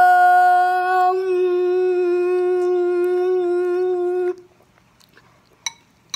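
A child's voice holding one long, steady note, open-mouthed at first and then carried on as a closed-mouth hum, stopping about four seconds in. Two faint clicks follow near the end.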